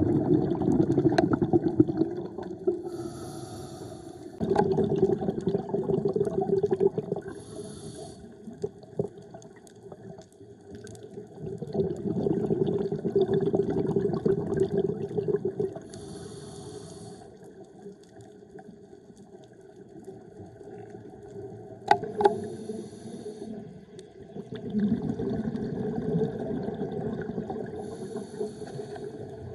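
A scuba diver breathing through a regulator underwater. Each breath is a short hiss on the inhale, then a longer burst of bubbling exhaust. About five breaths come at an unhurried pace.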